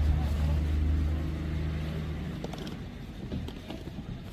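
Low, steady engine rumble that fades away about two seconds in.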